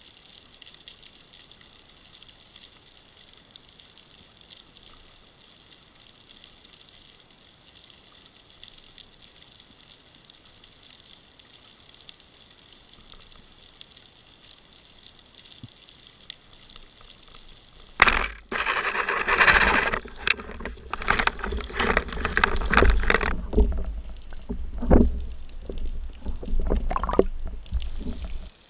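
Quiet underwater hiss while the spearfisher waits on the bottom, then a sudden sharp crack about two-thirds of the way in, followed by loud turbulent water and splashing with knocks and a low rumble that cuts off just before the end.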